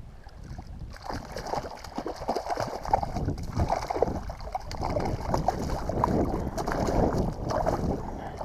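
Water splashing and sloshing against a kayak, starting about a second in and running on as a busy, crackly wash.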